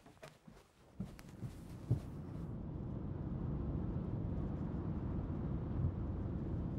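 A few soft footsteps, then from about a second in the steady low rumble of a car driving, heard from inside the cabin, with a couple of knocks near its start.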